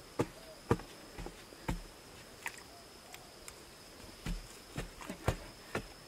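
A short digging tool striking packed earth at the bottom of a narrow pit, about two blows a second. The blows pause for about two seconds in the middle, with only small scraping clicks, then start again.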